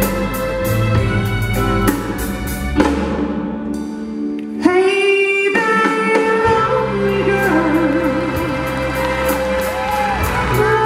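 Music: the instrumental introduction of a song, with a regular hi-hat beat and steady bass under held chords, a falling sweep about three seconds in, a fuller chord entering soon after, and a melody line with vibrato in the second half.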